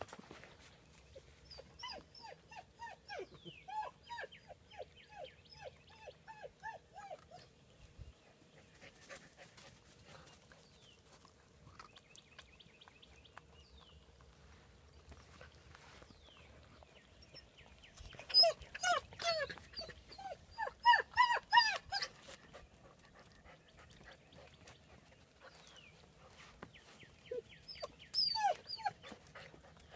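Ten-week-old German Shepherd puppies whining and yelping in strings of short, high cries that fall in pitch. First come faint whines, then a loud run of yelps past the middle and a few more near the end.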